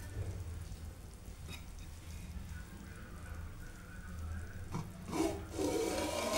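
Steel lid lifted off a pot of dum biryani: a sharp metallic knock about three-quarters of the way through, then a louder clatter of the lid against the pot, over a low steady rumble.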